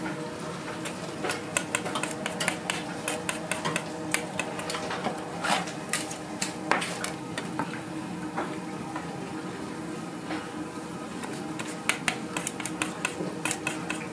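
Metal kitchen utensils and dishes clattering and clinking in many sharp, irregular clicks over a steady hum. The clicks thin out past the middle and pick up again near the end.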